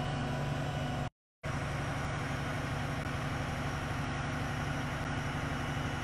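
Heavy vehicle engine running steadily at idle, a low even hum, with a brief total dropout about a second in.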